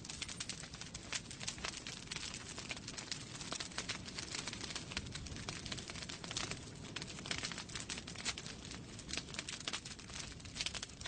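Wood fire crackling in a fireplace: many irregular pops and snaps over a steady soft rush.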